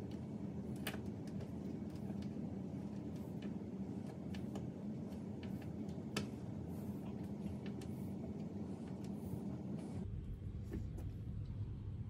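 Scattered faint clicks and light taps of fingers and a small tool working the hardware on a stainless steel toggle-switch wall plate, with one louder click about six seconds in, over a steady low hum.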